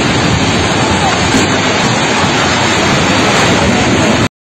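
Loud, continuous rushing roar as an apartment building collapses in an earthquake, with faint shouting in it. The roar cuts off suddenly near the end.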